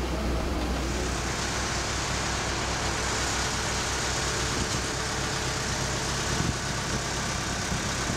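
Airport apron noise: a steady engine hum under an even high hiss, as a baggage belt loader runs and carries a scooter up its conveyor. The hiss comes in about a second in.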